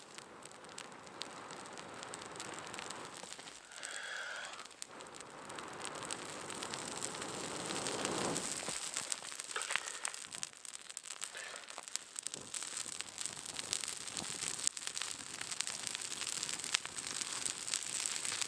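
Long, breathy blows on glowing embers and birch bark tinder, the last and strongest ending about eight seconds in, as the tinder smokes and catches. The new flame then crackles and pops, the crackling growing denser and louder toward the end.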